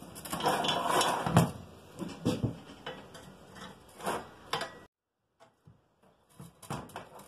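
Steel clinks, knocks and scrapes as a TS-85 beaver trap is handled on a metal tabletop while its pan-tension nut is loosened. The sound is busiest in the first second and a half, then comes as separate clicks, stops dead about five seconds in, and a few light clinks return near the end.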